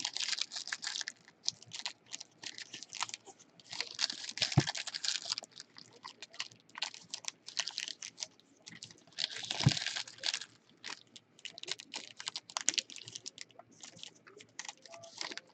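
Trading cards and foil pack wrappers being handled: irregular rustling and crinkling with scattered sharp clicks, in several bursts of about a second each.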